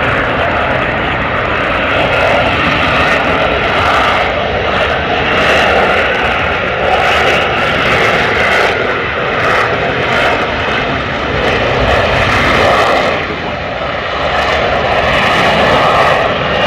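Aircraft engine noise, loud and continuous, its pitch bands wavering slowly.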